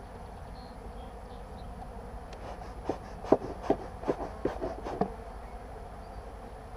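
Honeybees buzzing in a steady hum around an open hive. In the middle comes a quick run of about ten sharp wooden clicks and knocks as the next frame is worked loose from the hive body and lifted out.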